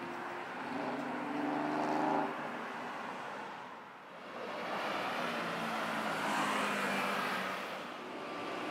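Road traffic: cars passing close by on a city street. One swells and fades about two seconds in, and another builds from about five seconds and fades near the end.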